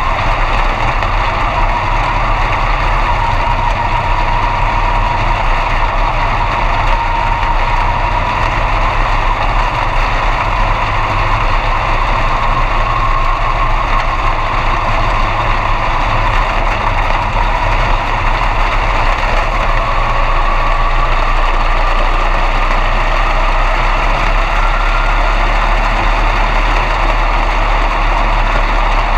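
B-Mod dirt-track race car's V8 engine running at a low, steady idle, heard from inside the cockpit, with a faint whine that dips slightly and then rises in pitch in the second half.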